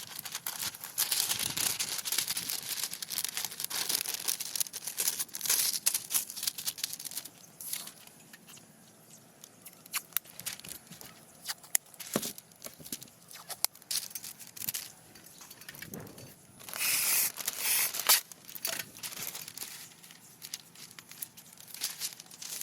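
Rustling and crinkling handling noises, in irregular bursts with scattered sharp clicks, louder during the first few seconds and again for a moment about two-thirds of the way in.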